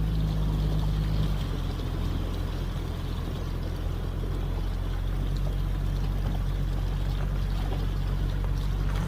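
A Jeep's engine running steadily at low revs as it fords a river, with water rushing and splashing around it; the engine note shifts slightly about a second in.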